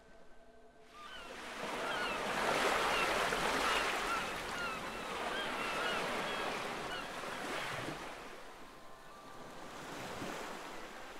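Waves washing onto a shore with seabirds calling repeatedly over them. The surf swells up about a second in and eases off toward the end, where soft sustained music tones come back in.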